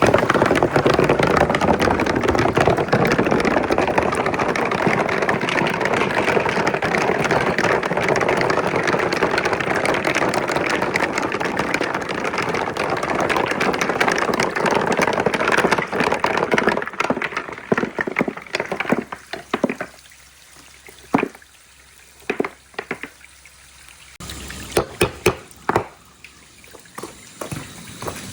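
Water released from a two-stage holding tank into a water marble run, rushing steadily down the channels for about seventeen seconds, then thinning to a trickle with scattered drips and small splashes.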